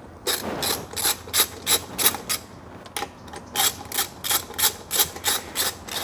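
Ratchet wrench clicking in quick repeated strokes, about three clicks a second, working the carburetor mounting nuts. The clicking comes in two runs with a short pause about halfway through.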